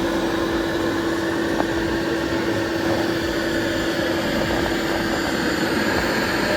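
CNC router spindle running steadily at about 18,000 rpm with a 1/8 inch downcut bit: a constant hum over an even rushing noise.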